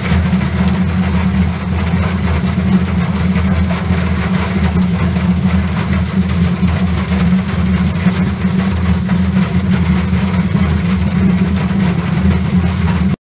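Kronen industrial abrasive-drum root peeler running with a load of taro: a steady, loud low motor hum under the rough scraping rumble of the corms tumbling against the abrasive disc and drum wall. It cuts off suddenly near the end.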